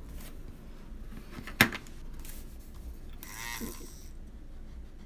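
A sharp click, then a Derwent battery eraser whirring for about a second as it rubs colored pencil off the paper to lift highlights.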